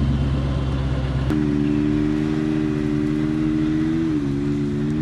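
Engines of a supercharged 5.7-litre Hemi V8 car and a turbocharged three-cylinder Can-Am Maverick X3 running while the two sit staged side by side before a launch. The engine sound changes abruptly about a second in, then holds at an even pitch with a slight dip near the end.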